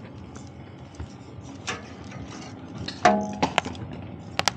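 Charcoal barbecue grill with corn cobs roasting over open flames: steady outdoor background with scattered small clicks and ticks. A short pitched, voice-like sound comes about three seconds in, and a few sharp clicks near the end.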